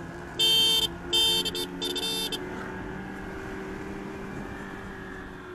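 Revolt RV400 electric motorcycle running at speed in third mode, a steady hum that rises slightly in pitch as it gathers speed. Three short, loud horn honks come in the first two and a half seconds.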